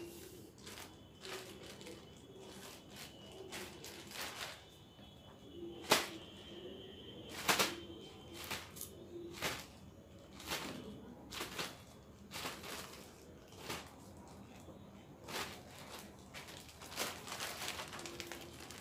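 Clear plastic bag crinkling and rustling in irregular crackles as it is handled and filled with tomatoes, with the sharpest crackles about six and seven and a half seconds in.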